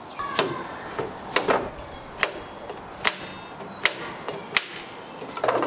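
Sharp wooden and metallic knocks and clicks, about seven in five seconds, as pallet-wood strips and the fence are handled on a benchtop table saw that is not yet running.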